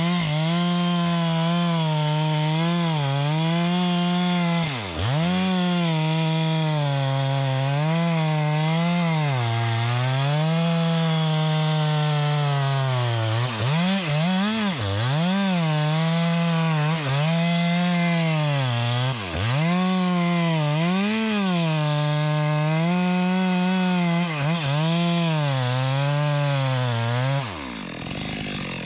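Two-stroke chainsaw running at high revs while cutting wood, its pitch wavering under load. The throttle is let off and squeezed again about three times, and the engine winds down to idle near the end.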